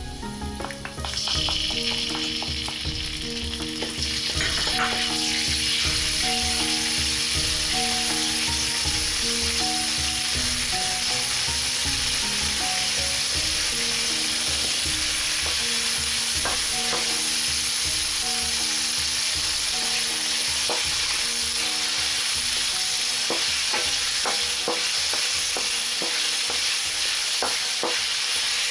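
Garlic and chili sauce sizzling in hot oil in a wok while being stirred with a wooden spoon; the sizzle grows sharply about a second in as the chili sauce hits the oil. A few sharp knocks near the end as chicken feet are dropped in. Quiet background music with a soft melody and steady beat plays underneath.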